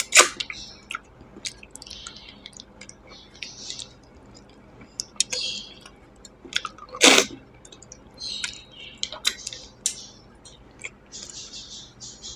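Close-up eating sounds: wet chewing and lip smacks, with the squish of curry and rice being mixed by hand on a steel plate. Two louder sharp sounds stand out, one right at the start and one about seven seconds in.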